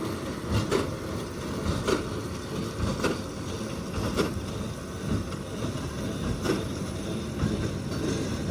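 A tractor and small square baler running, with a regular knock about once a second over a steady mechanical noise.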